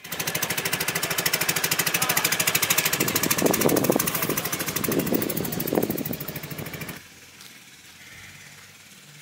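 Boat engine running steadily as the boat crosses open river water, with a fast, even pulse; it stops abruptly about seven seconds in, leaving quiet outdoor ambience.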